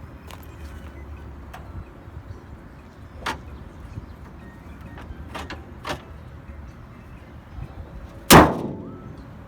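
A few light clicks and knocks, then one loud slam about eight seconds in with a short ringing decay: the car's hood being shut.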